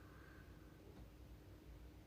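Near silence: faint room tone with a steady low hum, and a faint high tone during the first second.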